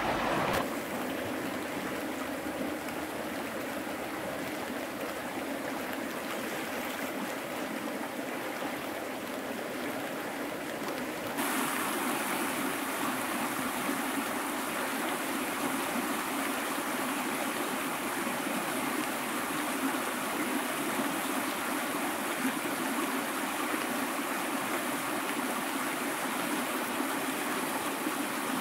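River current rushing steadily, which gets louder and brighter about eleven seconds in.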